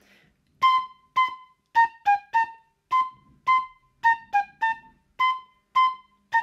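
The melody B, B, A, G, A played three times on a high-pitched instrument, in short detached notes: two steady notes, then three quicker stepping notes.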